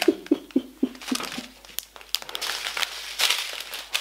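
Plastic packaging crinkling and rustling as it is handled, with a quick run of light taps and clicks in the first second.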